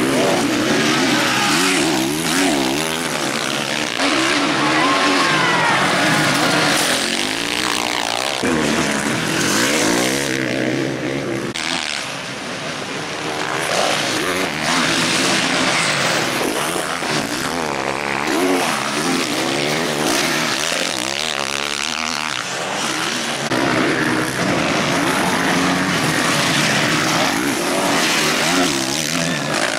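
Motocross bike engines revving hard, their pitch rising and falling repeatedly as riders accelerate, let off and jump.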